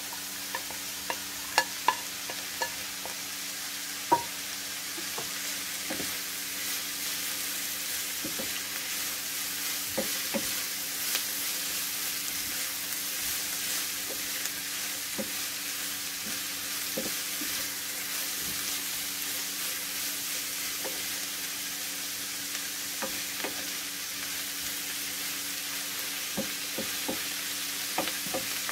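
Sliced vegetables sizzling in a nonstick frying pan as a wooden spoon stirs and turns them, with scattered sharp knocks of the spoon against pan and plate, the loudest in the first few seconds as red pepper strips are scraped off a plate into the pan. A faint steady hum runs underneath.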